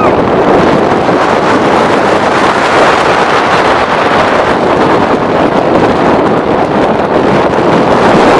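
Wind rushing over the microphone of a camera riding a steel roller coaster train, mixed with the train running along its track at speed: a loud, steady rushing noise.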